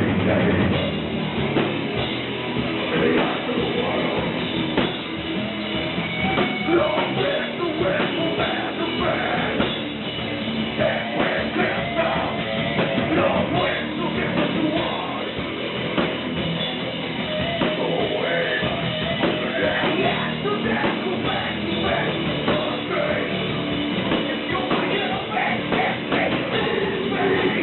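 Heavy metal band playing live, the full band going continuously.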